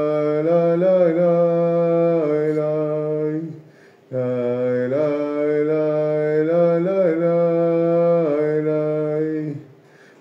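A man chanting a wordless melody on long held notes with small pitch bends. It comes in two phrases of about four seconds each, with a short break between them.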